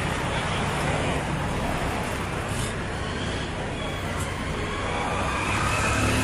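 Road traffic noise: a steady rumble of vehicles going by, with a pitched sound rising slowly near the end.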